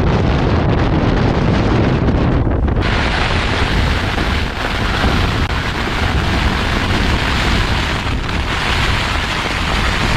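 Gale-force wind and heavy rain battering a tent, with wind buffeting the microphone: a loud, steady rushing noise that turns brighter and hissier about three seconds in.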